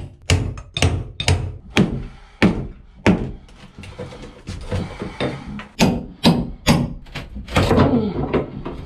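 Hard knocks struck about twice a second against a well-built built-in table and wall panel in a boat cabin as it is beaten and pried loose: a run of six blows, a stretch of scraping, then four more blows.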